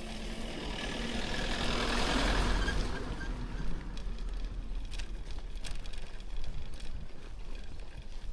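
A motor vehicle passing by: its noise swells to a peak about two seconds in, then fades away. Scattered sharp clicks follow.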